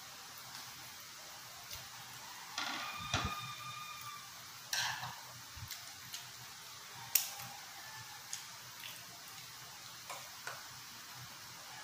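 Spoon and tableware clinking on dishes during a meal: scattered light clicks and taps, with one clink about three seconds in that rings on briefly.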